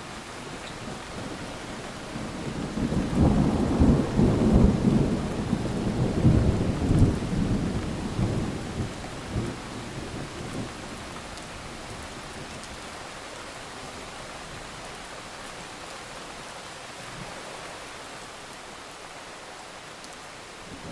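A low rumble that swells about two seconds in and dies away over several seconds, over a steady rushing hiss.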